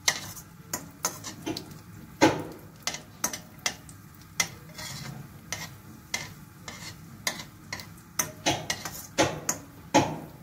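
Cashews and raisins frying lightly in a kadai with a faint sizzle, stirred with a spoon that knocks and scrapes against the pan in an irregular run of clinks, two or three a second.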